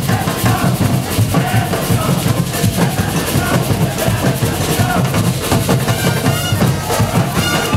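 Carnival drum band: many drums beating a dense, driving rhythm without a break.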